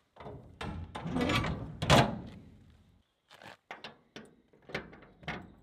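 Steel shipping container door swung shut, landing with a loud metal clang about two seconds in that rings out for about a second. After a short pause come light metallic clicks and taps at the stainless steel lock box as a padlock is fitted into it.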